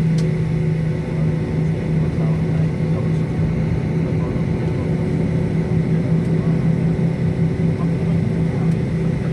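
Steady drone of a Lion Air airliner's engines: a constant low hum over a steady rushing noise, with no rise or fall in pitch.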